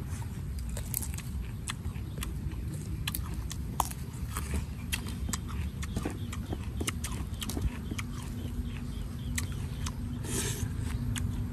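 Close-up eating sounds: chewing and crunching raw vegetables, with many small clicks and crackles as fingers tear apart grilled stingray and lettuce leaves.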